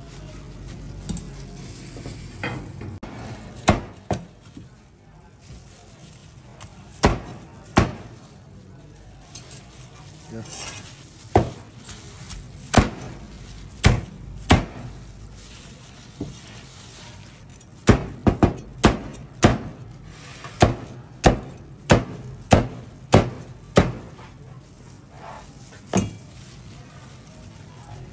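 Knife chopping on a cutting board: scattered single strokes, then a quick regular run of about two strokes a second a little past the middle, and one more stroke near the end.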